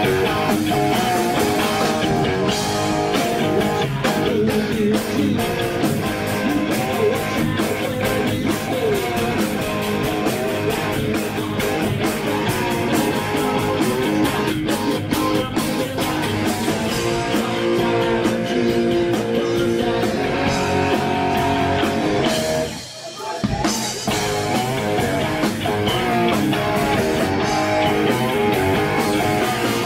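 Live rock band playing: electric guitars over a drum kit. About three quarters of the way through, the music cuts out for under a second, then comes back in.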